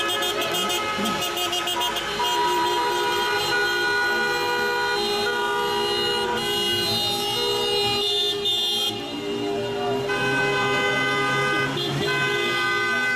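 Many car horns honking at once in long, overlapping blasts of different pitches from a slow-moving convoy of cars.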